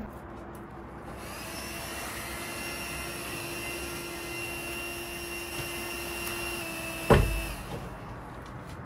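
Rechargeable electric air pump running with a steady whine as it inflates an air mattress, starting about a second in. About seven seconds in there is a loud thump and the pump cuts out: its battery has gone flat.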